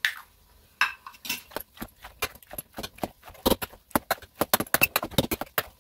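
A hand potato masher pounding boiled potatoes in an enamel pot, with quick uneven knocks and squelches several times a second. The knocks start about a second in and come faster towards the end.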